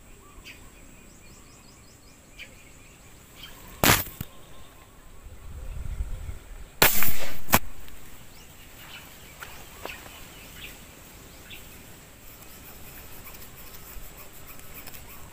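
Sharp snaps of a rubber-powered spear gun (tiksay) being fired at fish in the water: one about four seconds in, and a louder one about seven seconds in followed by a second click under a second later.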